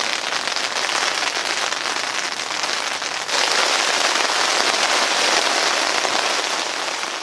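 Steady heavy rain falling on a tent, heard from inside the tent; it grows louder about three seconds in and fades away near the end.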